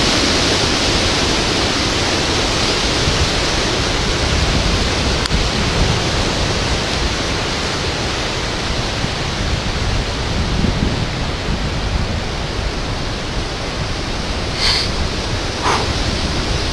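Steady hiss of heavy hurricane rain and wind, with wind rumbling on the microphone. Two brief sharp sounds come near the end.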